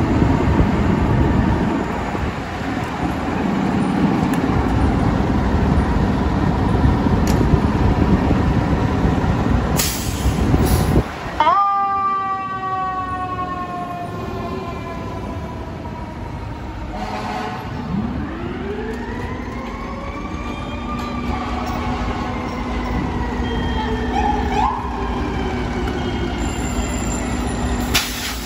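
Fire apparatus pulling out: heavy truck engines running, with short air-brake hisses. Partway through a siren winds up sharply and falls away in a long dropping whine, then winds up and down again more slowly.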